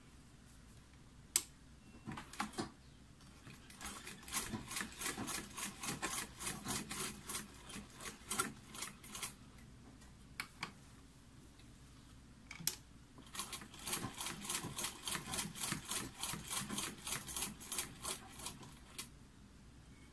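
Domestic sewing machine stitching fabric in two runs of rapid, even clacking, about five stitches a second, with a few single clicks before and between the runs.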